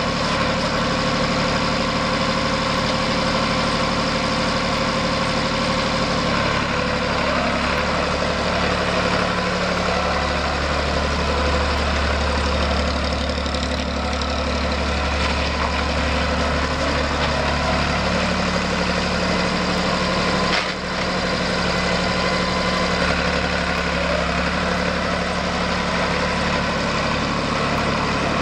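International Harvester 484 low-profile tractor engine running steadily as the tractor is driven slowly, its note shifting a little in pitch several times, with a brief dip about twenty seconds in.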